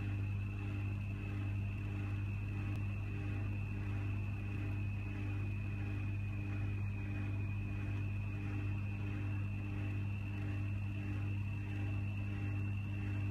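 A steady low hum with a thin high-pitched whine above it, unchanging throughout.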